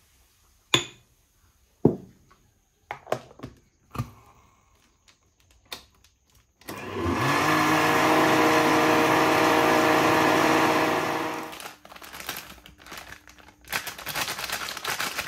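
A few sharp knocks and clicks, then a countertop blender motor spins up and runs steadily for about five seconds before stopping, followed by light clattering. It is blending a drink, likely the peanut punch.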